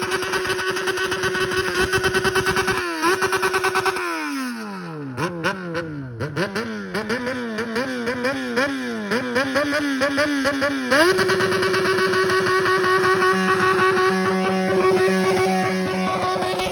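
Yamaha XJ6's 600 cc inline-four running through a straight pipe with no muffler, held at high revs. About four seconds in the revs fall away with sharp cracks from the pipe, then rise and fall in quick repeated blips, and about eleven seconds in they climb back to a steady high pitch.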